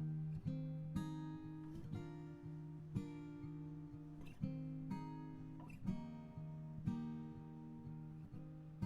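Background music: an acoustic guitar strummed about once a second, each chord ringing on.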